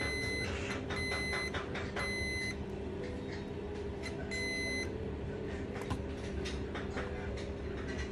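Four short high-pitched electronic beeps, all at one pitch: three about a second apart, then a fourth after a pause. A steady low hum and small clicks sit under them.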